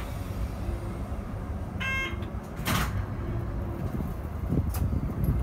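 Keikyu New 1000 series train standing at the platform, its on-board equipment giving a steady low hum. A short electronic beep about two seconds in, then a knock and a few lighter clicks: the sliding doors shutting before departure.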